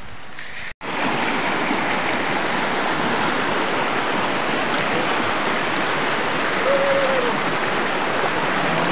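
Shallow mountain river rushing over rocks and stones, a loud, steady rush of water that starts about a second in.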